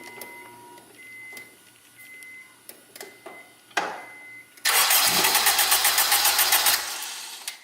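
Turbocharged Acura RSX engine cranking on the starter for about two seconds without starting, after a few short electronic beeps. It is a no-start that the owner thinks is caused by bad spark plugs.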